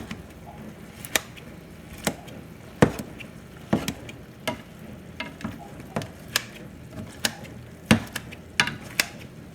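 A meat chopper utensil knocking against a frying pan, irregularly about once a second, as it breaks up cooking chicken into chunks, over the steady sizzle of the chicken frying.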